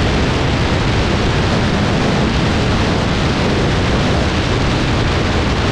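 Wind buffeting the microphone of a camera mounted on the outside of a car at highway speed, mixed with tyre and road noise: a loud, steady rush with no engine note standing out.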